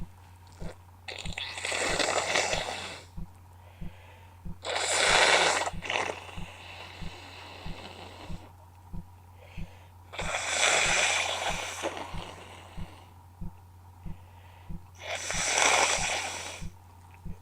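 A woman with a heavy head cold clearing her congested nose four times, with long, wet, noisy nasal blows and sniffs each lasting one to two seconds.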